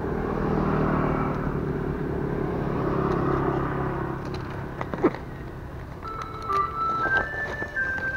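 A motor vehicle passes, its low rumble swelling and then fading over the first four seconds or so. After a sharp click about five seconds in, a simple electronic melody of single stepped notes comes in.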